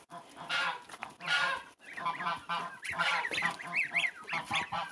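A flock of goslings calling with many short, high, overlapping peeps that rise and fall, one after another, as they are herded along.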